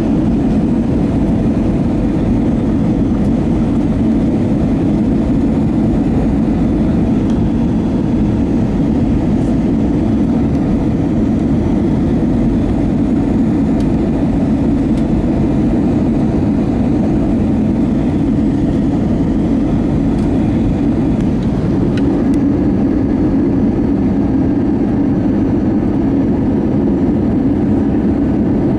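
Airbus A320 cabin noise on approach: the jet engines and rushing air heard from a window seat as a steady, low-pitched drone.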